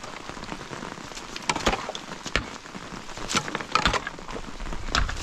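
Steady rain, with a scattering of sharp knocks and clicks through the middle.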